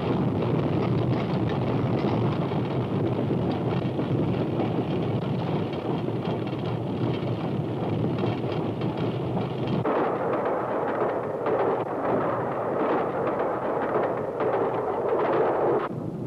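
Steam locomotive running at speed, heard from the footplate: a steady rushing rumble and rattle. About ten seconds in the sound turns brighter and less deep.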